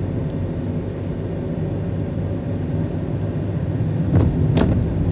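Steady low rumble of a car's engine and tyres heard from inside the cabin while driving, with two short knocks near the end.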